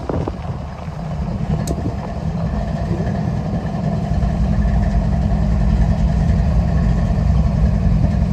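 Diesel locomotive engine running with a steady low drone, growing louder over the first few seconds and then holding steady.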